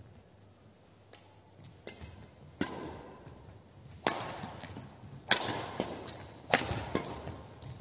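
Badminton rally: rackets striking the shuttlecock with sharp cracks, about one hit every second or so after a quiet start, each ringing briefly in a large hall.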